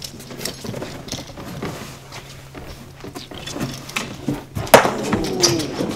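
Footsteps and the scuffs and knocks of cardboard boxes being carried and set down. About three-quarters of the way through, a sharp thud, the loudest sound, is followed by a short ringing rattle.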